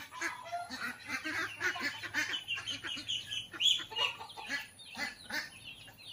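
A flock of domestic ducks quacking, with many short calls overlapping throughout. One louder call comes about three and a half seconds in.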